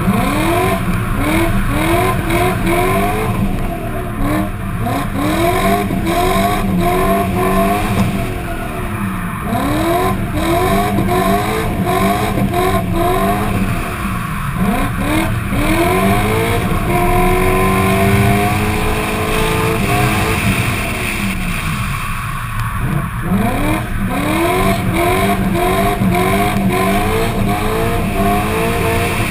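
Drift car's engine, picked up by a camera on the bonnet, revving hard in quick repeated rising sweeps that climb and drop back a few times a second as the car slides through the corners, with a steadier held rev for a couple of seconds a little past the middle.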